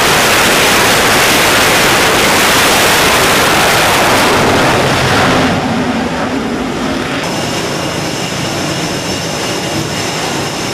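Jet fighter engines running on a carrier flight deck: a loud, steady rush, dropping somewhat about five seconds in to a quieter run with a steady high-pitched jet whine.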